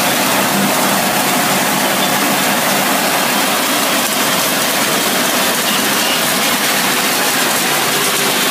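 Dry dog-food kibble pouring off a vibrating perforated steel screen into a steel hopper: a steady, loud hiss and rattle of pellets on metal over a constant machine hum.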